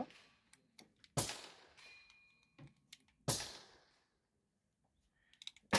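Two gunshots on an indoor range, about two seconds apart, each with a short reverberating tail, with a few small clicks between them.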